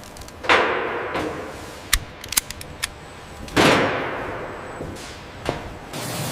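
Two loud sudden bangs, about three seconds apart, each trailing off in a hiss over about a second, with several short sharp clicks between and after them.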